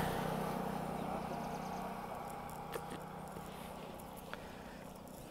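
A road vehicle fading away into the distance, a steady low hum sinking slowly in level, with a few faint clicks.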